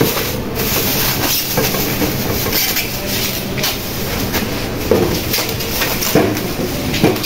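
Clear plastic wrapping film crinkling and rustling as it is pulled off a glass-top gas stove, a steady run of crackles throughout.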